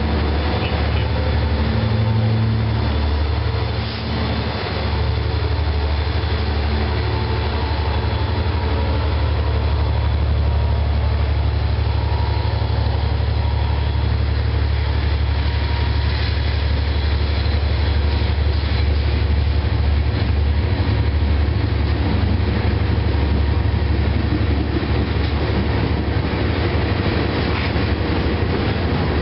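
CSX freight train rolling past at close range: a steady low rumble of the cars' wheels running over the rails, with a brief dip in loudness about four seconds in.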